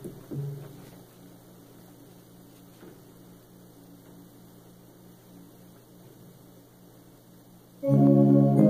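Steady low electrical mains hum after a couple of soft thumps right at the start. About eight seconds in, hymn accompaniment music starts abruptly with loud held chords.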